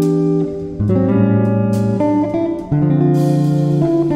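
Instrumental background music led by guitar, with held notes that change about once a second and a few sharp plucked attacks.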